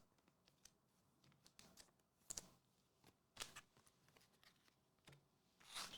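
Near silence, broken by a few faint short ticks and rustles of trading cards being slid and handled.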